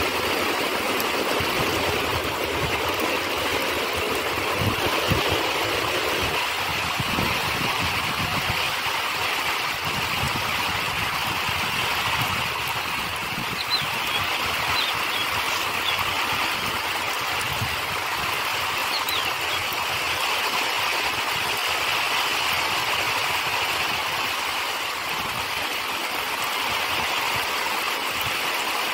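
Steady rain falling, a dense even hiss, with irregular low rumbles in the first several seconds.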